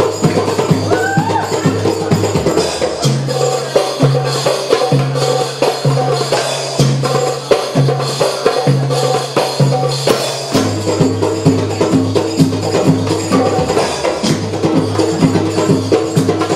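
Doumbek (Middle Eastern goblet drum) played by hand in a quick, steady belly dance rhythm, crisp strokes with high ringing jingles over repeating low bass notes.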